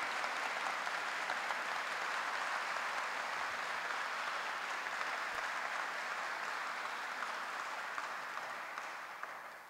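Wedding congregation applauding, a steady sustained clapping from many people that dies away near the end.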